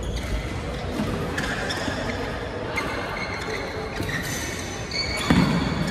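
Badminton rally: rackets strike the shuttlecock about five times, one sharp hit roughly every second and a bit, the last the loudest. Music plays in the background.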